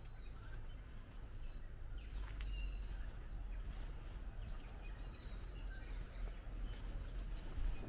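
Outdoor ambience: birds chirping now and then, short high calls scattered through, over a steady low rumble of wind. A few light clicks of footsteps on the path.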